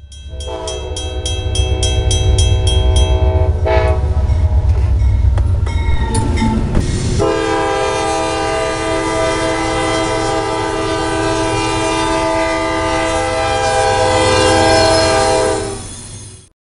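NJ Transit commuter train passing a grade crossing, its air horn sounding a chord in two long blasts: one of about three seconds, then after a pause a longer one of about nine seconds. Heavy rumble of the passing train runs under the first half, and the sound cuts off abruptly near the end.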